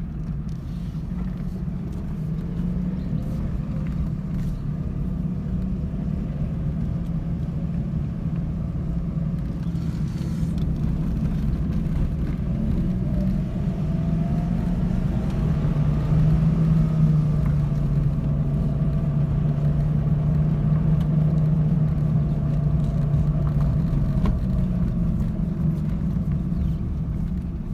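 Renault Kwid's three-cylinder petrol engine and road noise heard from inside the cabin while driving: a steady engine hum that grows louder about halfway through. The engine pulls smoothly with no fuel cut-outs now that the faulty accelerator pedal has been replaced.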